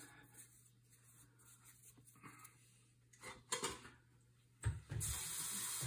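A few light knocks as a plastic cup is handled, then about a second of water hissing from a tap into the cup, which cuts off suddenly near the end.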